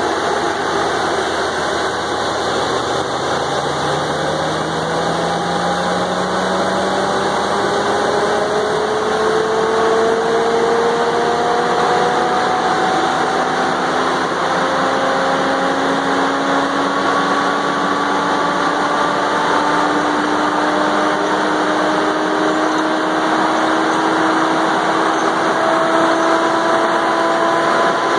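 Valmet 603S feller buncher running at close range: a steady machine rumble with a whine that climbs slowly and evenly in pitch over twenty-odd seconds.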